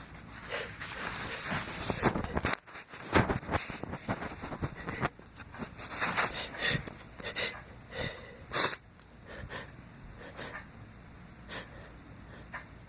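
A person's sneezing fit set off by a strong fragrance spray: a run of sharp sneezes and snorting, gasping breaths over the first nine seconds or so, the loudest near the end of the run, then quieter sniffing.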